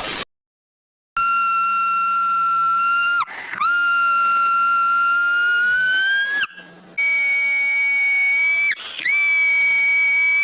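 Shrill, high-pitched whistle-like tones, each held steady for two or three seconds with brief breaks. The later tones are pitched higher, and the last one rises in pitch near the end.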